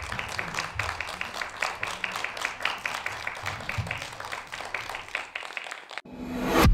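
An audience of children clapping, a fast dense patter of handclaps. About six seconds in the clapping cuts off and a rising whoosh sound effect swells to the loudest point.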